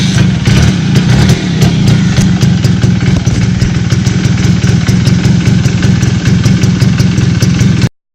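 Suzuki Max 100 R's small two-stroke single-cylinder engine running at a steady idle, close and loud, with a rapid ticking clatter over its low drone. It stops abruptly near the end.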